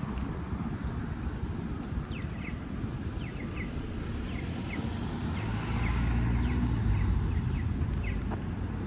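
City street traffic rumble, swelling as a vehicle passes about halfway through, with a small bird chirping repeatedly in short, high notes.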